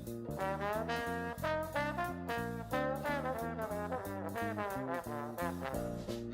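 Background music: an upbeat jazz or swing tune led by brass over a walking bass line.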